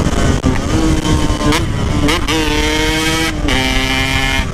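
Yamaha RX-King 135cc two-stroke single-cylinder motorcycle engine with a loud aftermarket exhaust, pulling hard at high revs. The throttle cuts briefly four times, and after each cut the engine note settles at a new steady pitch, as on gear changes.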